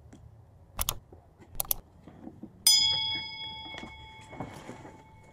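Subscribe-button animation sound effect: a few sharp mouse-style clicks, then a bell notification ding about two and a half seconds in that rings and fades over about two seconds. Faint rustling of a cardboard box being opened sits underneath.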